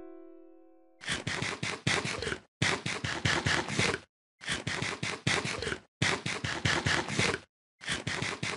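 A dog eating dry kibble from a metal bowl: crunching in about five bursts of a second and a half each, with short pauses between them, starting about a second in. Before that, the last plucked-string chord of the background music fades out.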